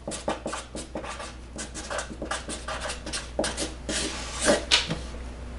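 Ballpoint pen writing on paper: a run of short, quick scratchy strokes, a few of them louder about three and a half and four and a half seconds in.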